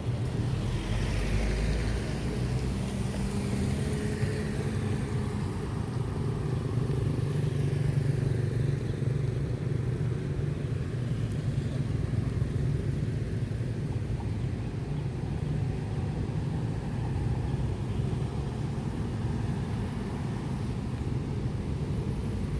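Road traffic: cars and motorbikes passing with a steady low engine rumble.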